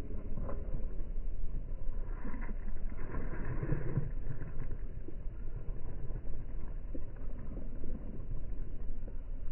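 Steady low outdoor rumble of background noise, with faint distant voices about two to four seconds in.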